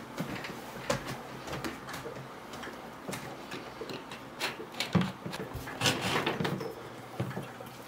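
Two CAT6 cables being pulled by hand up through an opening in the wall: irregular rustling, scraping and light ticks of the cable jackets against the wall edge and mounting bracket, with a couple of louder knocks around five and six seconds in.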